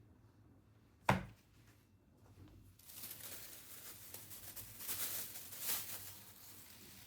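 Kitchen handling sounds: a single sharp knock about a second in, then a few seconds of rustling and scraping that swells twice near the end.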